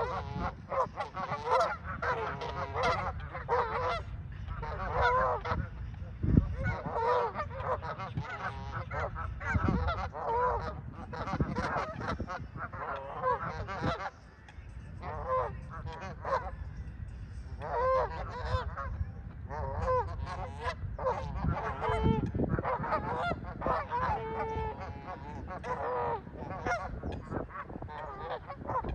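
Canada geese honking over and over, call after call, with a brief lull about halfway through.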